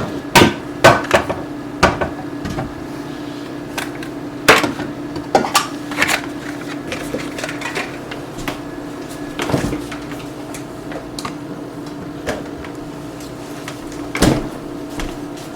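Kitchen clatter of a spoon and dishes: a quick run of sharp knocks and clinks over the first several seconds, then a few single knocks, over a steady low hum.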